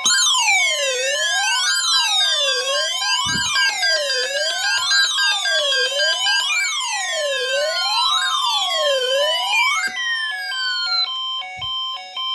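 Several weather alert radios (Midland, Cobra and G-Storm models) alarming together, set off by a weekly test alert. A siren tone sweeps up and down about every one and a half seconds over falling glides and steady on-off beeping; the siren stops about ten seconds in and the beeping goes on.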